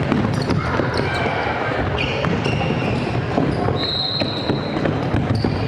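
Gym sounds during an indoor volleyball match: sharp ball hits and footfalls ringing in a large hall over a steady murmur of the crowd. A single steady high tone lasts about a second, around four seconds in.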